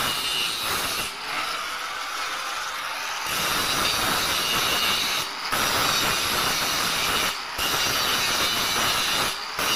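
Handheld angle grinder grinding the steel bars of an iron window grill: a steady high whine over harsh grinding noise, briefly breaking off three times in the second half.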